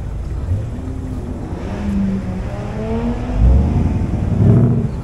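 Sports car engine revving, its pitch climbing, with two loud low surges near the end.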